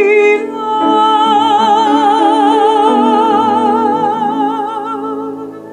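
A slow ballad playing: a singer holds one long note with wide vibrato over soft sustained accompaniment and bass, and the music fades down near the end.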